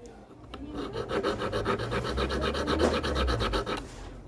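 Silver ring being filed or sanded: rapid, evenly repeating rasping strokes start about a second in and stop about three seconds later.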